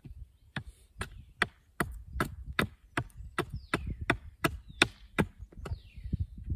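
A small hatchet striking wood in short, choked-up strokes, about two evenly paced blows a second.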